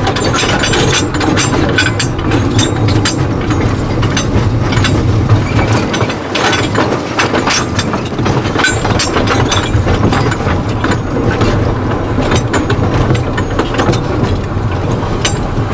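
Small narrow-gauge steam locomotive running slowly, heard from its footplate: a steady low running noise with frequent, irregular clicks and knocks from the wheels on the rails.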